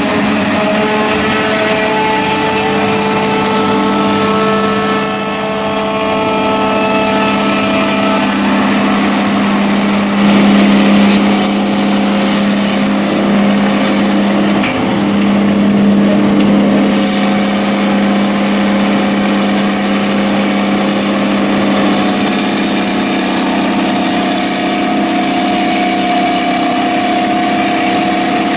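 Tractor diesel engines running steadily at working revs during corn silage harvesting, with steady whining tones from the driven machinery that change pitch about eight seconds in and again near twenty-two seconds.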